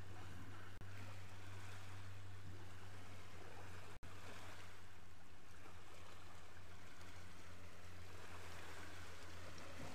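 Steady wash of shore water lapping on a gravel beach, with a constant low rumble underneath. The sound cuts out for an instant twice, about one second and four seconds in.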